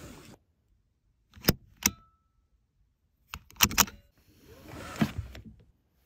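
Car seatbelt: sharp metallic clicks of the latch plate and buckle, two about a second and a half in and a quick cluster near the middle. Then the webbing slides back through the pillar guide as the retractor reels it in.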